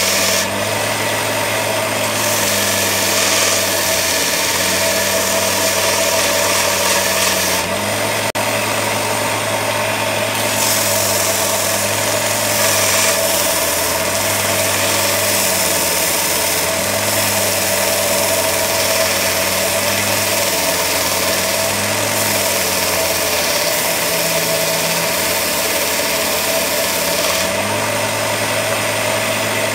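Parkside bench grinder with a belt-sanding arm running, a wooden knife-handle block held against the moving sanding belt with a steady grinding hiss over the motor's hum. The motor's pitch sags briefly several times as the wood is pressed on and loads it, and comes back up near the end when the block is lifted off the belt.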